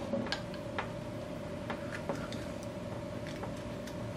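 Scattered faint clicks and ticks from a wetted rubber fuel line being worked and pushed by hand onto a small two-stroke carburetor's brass fuel inlet.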